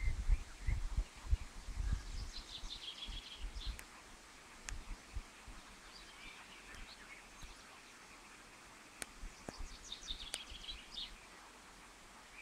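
Small birds singing in forest, in short high twittering phrases about two seconds in, around six seconds and again near ten seconds. Low bumps on the microphone in the first few seconds.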